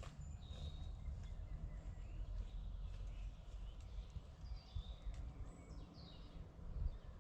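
Scattered songbird calls, short high chirps and whistles, over a steady low rumble.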